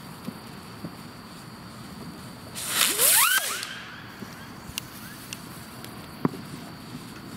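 A small whistling mini-rocket (a Zip, the US counterpart of a mosquito rocket) launches about two and a half seconds in: a loud hissing rush about a second long, with a whistle rising in pitch. Faint scattered pops and clicks sound before and after it.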